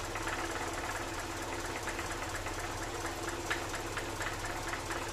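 Mercedes-Benz M102 1998cc eight-valve four-cylinder engine, running on a home-built fuel injection system with an injector and coil-on-plug for each cylinder, idling steadily while still cold just after a cold start.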